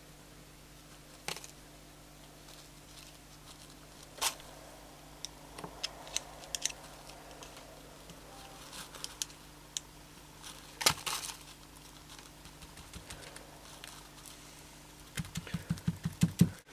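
Scattered light clicks and small scraping handling noises of hand work on a brass tap, as string packing is pushed down beside the shaft with a thin wire; a quick run of about eight taps comes near the end.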